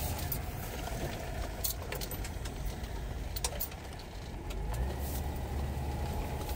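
Inside the cabin of a 1979 Ford Granada 3.0 with the Essex V6 running as the automatic car rolls slowly along a gravel track. Scattered light clicks and rattles sound over a steady low engine hum, and the hum grows fuller about five seconds in.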